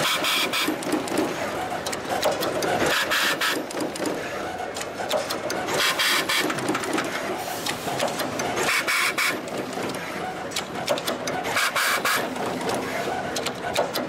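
Automatic wire cut-strip-twist-tinning and terminal crimping machine running through its cycle: continuous fast mechanical clicking and clatter, with a louder hissing burst about every three seconds as each wire is processed.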